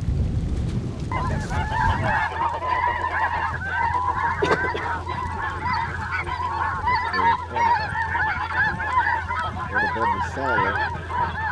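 Wind buffeting the microphone, then about a second in a dense chorus of many snow geese calling at once, their short high honks overlapping.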